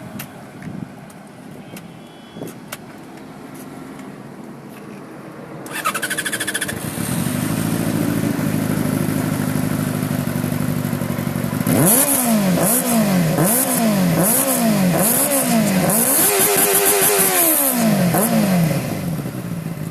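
Benelli TNT600i inline-four motorcycle engine on its stock exhaust starting about six seconds in, settling into a steady idle, then revved in a series of quick blips with one longer held rev before dropping back to idle near the end.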